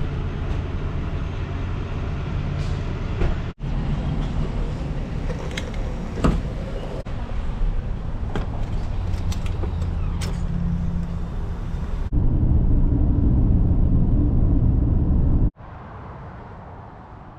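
Pickup truck running, with road noise and scattered clicks and knocks, in several short clips edited together. A louder low rumble comes about twelve seconds in and stops at a sudden cut, and the rest is quieter.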